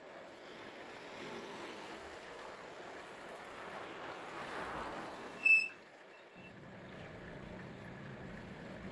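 A vehicle passing by, its rushing noise swelling and then fading, with one short, loud, high-pitched squeak about five and a half seconds in.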